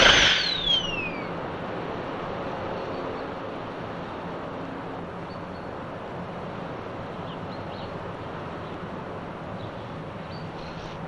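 Toy ray gun firing: a sharp zap that sweeps steeply up in pitch and then falls away in a whistle, over in about a second. After it there is only a steady hiss.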